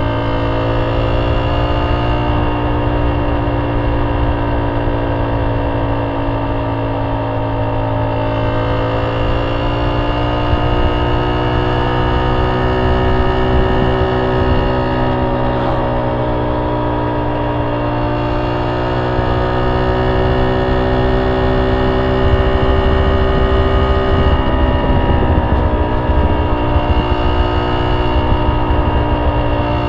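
A Honda C70's small four-stroke single-cylinder engine running through a banana-style aftermarket exhaust, heard from the rider's seat while cruising. The steady exhaust note rises and falls gently with the throttle and grows louder about three-quarters of the way through, over wind rush on the microphone.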